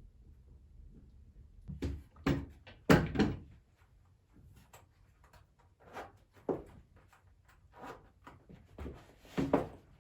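A series of irregular knocks and thuds of objects being handled, about eight in all, the loudest about three seconds in.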